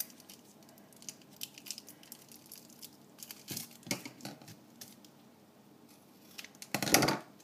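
Small cardboard drink carton handled on a counter with light knocks and rustles, then kitchen scissors cutting into the carton near the end, the loudest sound.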